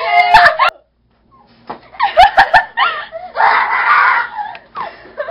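Children shrieking and laughing in a pillow fight, high-pitched screams in several bursts, with a few sharp knocks mixed in.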